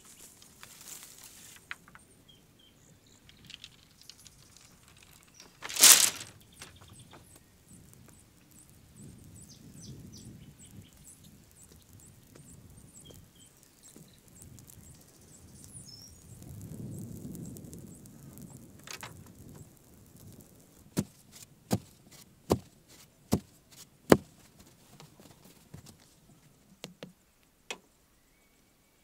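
Bamboo construction work: one loud thump, then near the end a run of five sharp knocks a little under a second apart and a few fainter ones, as bamboo poles are handled and set upright on the platform.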